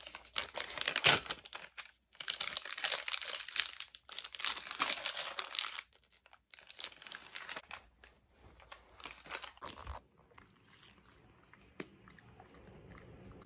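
A treat wrapper crinkling and tearing as a dog chew stick is unwrapped by hand. It is loudest for about the first six seconds, then gives way to softer, scattered crinkles.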